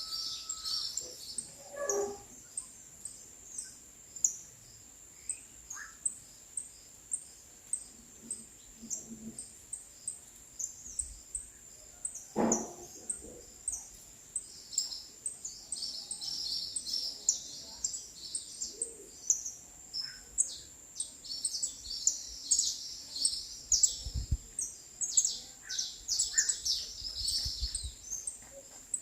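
Small birds chirping and twittering in quick, high, repeated calls, thicker and busier in the second half, over a steady high-pitched tone.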